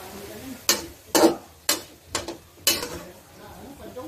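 A metal spatula scraping and clanking against a metal wok as diced pork is stir-fried, with about six sharp strokes over the first three seconds. A low sizzle of the frying meat runs underneath.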